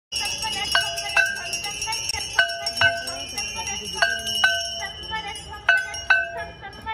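Aarti bells ringing: a continuous high, jangling ring with pairs of louder, lower bell strokes coming about every one and a half seconds.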